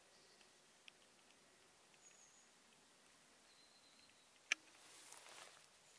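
Near silence in woodland: two faint, thin high chirps, a single sharp click about four and a half seconds in, then soft rustling near the end.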